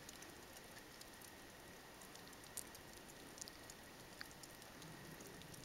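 Near silence: faint outdoor background hiss with a few faint scattered ticks.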